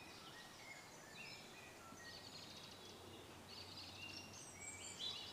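Faint birdsong in woodland: several birds giving high whistled notes, some falling in steps, and a quick trill around the middle.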